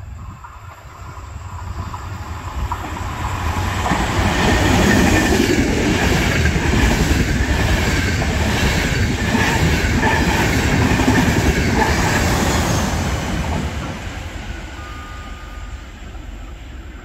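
Intercity passenger train, two half-trains with E464 electric locomotives, passing through the station at speed: it builds up over a few seconds, then its wheels clatter over the rail joints in a steady rhythm for about eight seconds before the sound fades as the last coaches go by.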